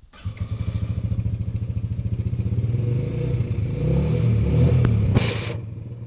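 Yamaha Badger 80 ATV's single-cylinder four-stroke engine running with an even pulse, revs rising between about three and five seconds in and then falling back. It runs well with its valve lash freshly set; a too-tight intake valve had been holding the valve slightly open and stopping it from starting. A brief rushing noise comes just after five seconds in.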